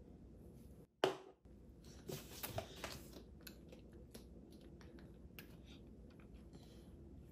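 Small clicks and clatter of a metal fork and tableware as a toddler feeds himself in a high chair. There is one sharp knock about a second in and a short run of clattering around two to three seconds, then faint scattered ticks.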